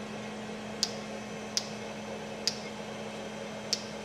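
Four sharp metallic clicks, spaced about a second apart, from the chuck and indexing fixture of a crankshaft grinder as the crankshaft is turned 120 degrees by hand to index the next journals. A steady machine hum runs underneath.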